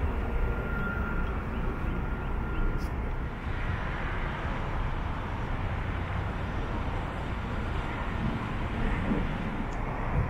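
Steady outdoor road-traffic noise from a wide street, with no single vehicle standing out; it grows a little brighter about three and a half seconds in.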